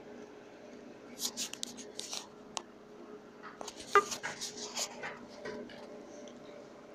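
Handling noise from a hand-held phone: scattered rustling and scraping in two bursts, with one sharp knock about four seconds in, over a steady low hum.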